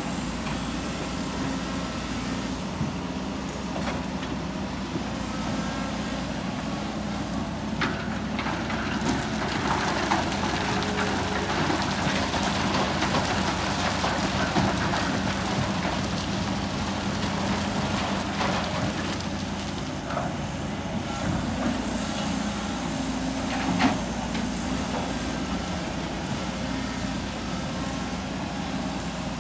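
Kobelco crawler excavator's diesel engine running steadily under load as the machine digs and swings, with loads of sand and rock poured from its bucket into a dump truck bed. A few sharp knocks of stone striking the truck body come through, the loudest about two-thirds of the way in.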